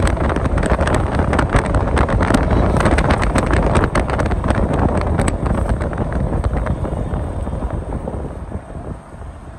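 Wind rushing over the microphone through an open window of a moving car, with road and tyre noise on a wet road and a crackle of buffeting; it quietens near the end.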